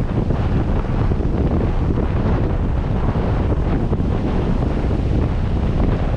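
Wind buffeting the microphone of a camera mounted on the outside of a slowly moving 4x4, a steady, dense low rumble.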